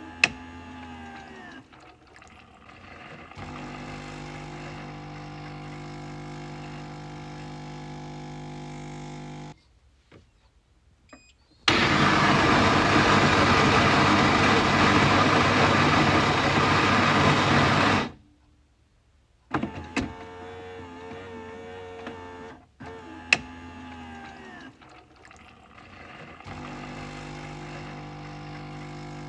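Coffee machine working through its cycle. There are sharp clicks, a motor hum that glides in pitch and then holds steady, and short pauses. Near the middle comes a loud rushing noise lasting about six seconds, and then the clicks and motor hum start again.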